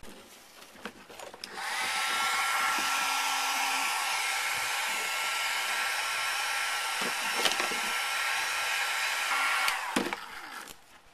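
A handheld heat gun blowing hot air onto grey PVC pipe to soften it for bending. Its fan whines up about a second and a half in, runs steadily with a hiss of rushing air, then winds down near the end, with a few small handling clicks before and after.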